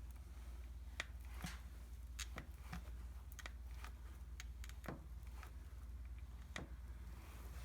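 Grease gun working on a tractor grease fitting through a new grease coupler: irregular sharp clicks and small metal ticks, over a steady low hum.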